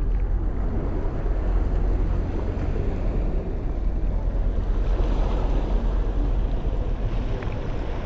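Steady wind rumble buffeting a GoPro's microphone, over the wash of ocean surf.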